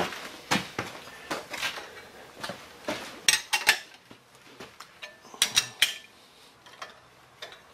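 A steel wrench clinking on hex nuts and a quarter-inch steel hold-down plate as the nuts are tightened down: irregular sharp metallic clicks, with quick runs of three or so about three seconds in and again about five and a half seconds in.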